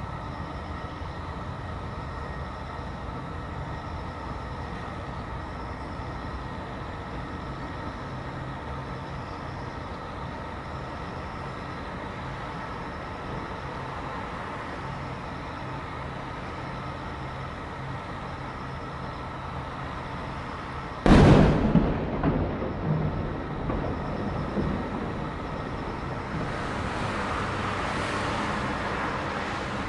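Steady low background hum of the city, then, about two-thirds of the way in, a single loud boom of an aerial firework shell bursting, echoing and dying away over a few seconds. Near the end a softer rush of hiss rises and fades.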